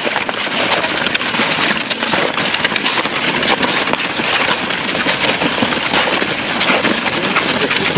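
Many snowshoes and trekking poles crunching and clicking on packed snow as a group walks uphill, a dense, steady run of crunches.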